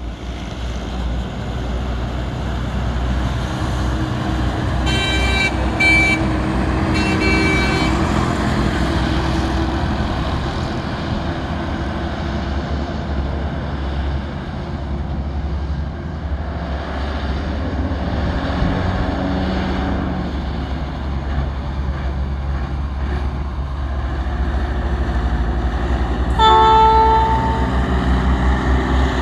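Heavy truck running on the highway with a steady low engine and road rumble. A horn sounds three short blasts about five to eight seconds in, and one more blast near the end.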